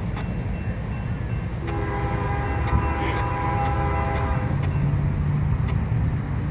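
Distant diesel freight locomotive's multi-note air horn sounding one long blast of about three seconds, starting a couple of seconds in, as the train approaches. A steady low rumble runs underneath.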